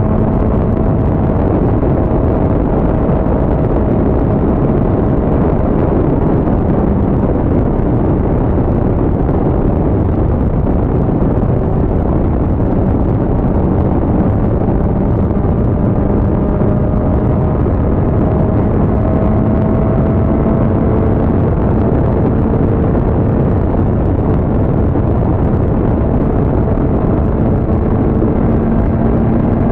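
Motorcycle engine running at a steady highway cruise, its note sagging slightly and rising again near the end, under heavy wind and road rush on the bike-mounted camera.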